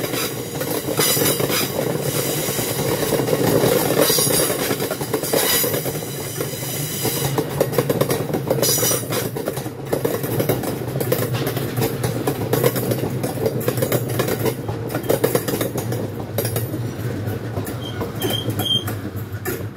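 Stone train's MMA box wagons rolling past at close range: steel wheels clatter over the rail joints over a steady rumble, with a few brief high screeches of wheel on rail. The last wagon passes near the end.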